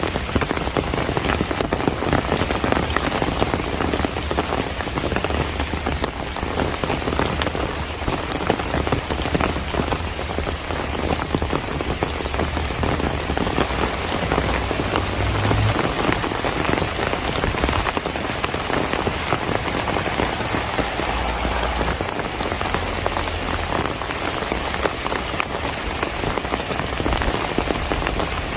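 Steady heavy rain from the summer monsoon, falling on surfaces, with many separate drop hits heard through the even hiss of the downpour.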